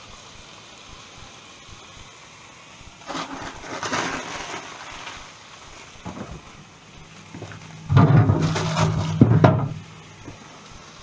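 Kitchen handling noises: a rustle about three seconds in, a single click near six seconds, then a louder clatter with a low rumble around eight seconds as the fridge is opened.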